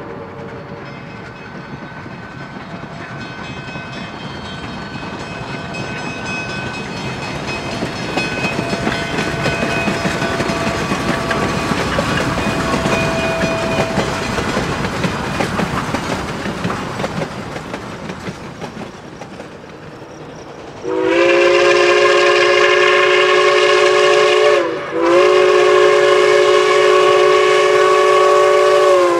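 A steam train rolls by, its wheels clicking over the rail joints, growing louder and then fading. About 21 seconds in, a three-chime steam whistle, the Chicago, Burlington & Quincy 3-chime fitted to Denver & Rio Grande Western No. 473, sounds two long blasts with a brief break between them.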